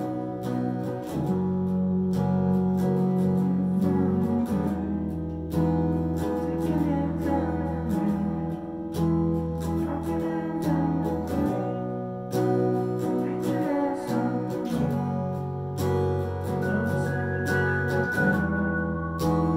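Electric guitar through an amp and a keyboard playing slow, sustained chords with deep held low notes, the chord changing every three to four seconds.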